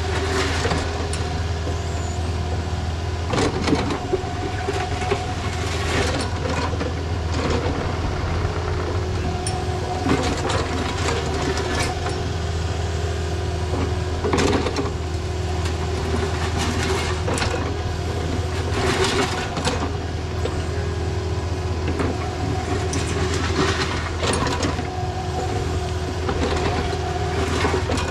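Takeuchi mini excavator running, its diesel engine steady with a hydraulic whine that comes and goes as the arm moves. Every few seconds the bucket scrapes through dirt and gravel.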